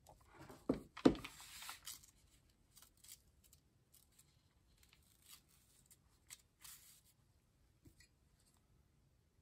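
Two knocks about a second in, then paper rustling and crinkling as sheets of paper are lifted and a comic book's cover is handled and folded back, in short scattered bursts.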